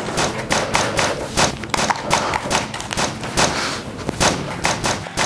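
Rapid, irregular gunshot sound effects, several shots a second: a staged gunfight.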